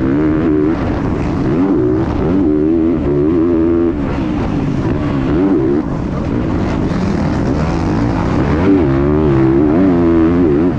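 Motocross bike engine heard from on the bike, revving up and dropping back again and again as the rider accelerates and shuts off through the turns and straights.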